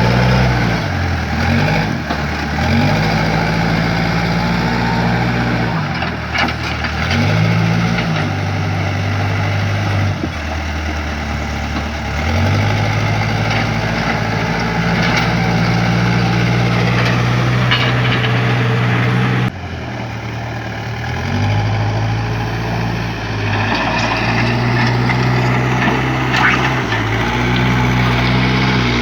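Backhoe engine running as the machine works dirt, its pitch dropping and climbing again several times, with a few sharp knocks. The sound breaks off abruptly about two-thirds of the way through and starts again.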